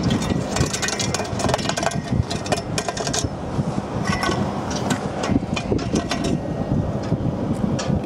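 Steel conveyor roller tubes knocking and rattling against each other as they are pulled from a pile of bent rollers, in a string of short metallic knocks. Wind buffets the microphone with a steady low rumble underneath.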